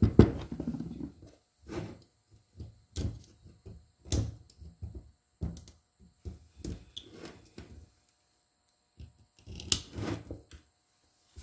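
Irregular clicks, taps and knocks of hand tools against a brake slave cylinder and its small metal parts as they are handled, loudest in the first second and again about ten seconds in.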